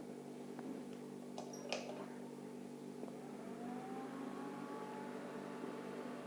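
Small electric motor running with a steady hum, with a couple of sharp clicks about a second and a half in and a faint tone rising in pitch around three seconds in.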